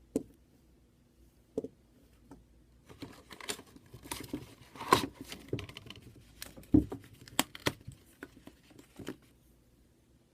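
Packaging being handled during an unboxing, crinkling and rustling with sharp clicks and knocks. A few separate clicks come first, then a busy stretch of rustling from about three seconds in, with the loudest knocks near the middle, dying away about a second before the end.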